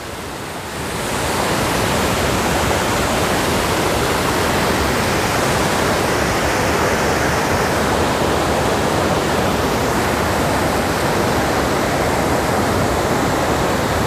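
Waterfall and rapids in high flow, fast water rushing over rock ledges in a loud, steady rush that builds over about the first second and a half.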